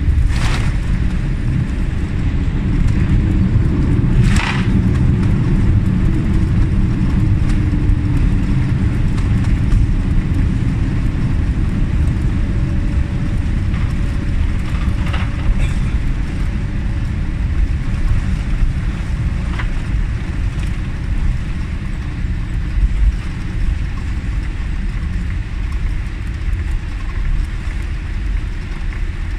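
Boeing 787-8 rolling out on the runway after touchdown, heard inside the cabin over the engine: a loud, steady roar and rumble. The roar jumps up at the start and then slowly eases as the aircraft slows. A couple of sharp knocks come in the first few seconds.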